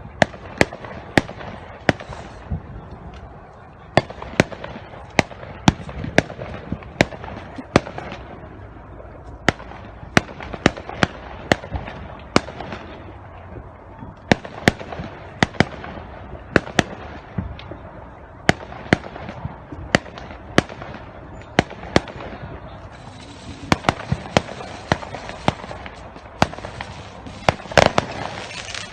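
Fireworks going off: dozens of sharp bangs and cracks at irregular intervals, sometimes several in quick succession, over a steady rumbling background.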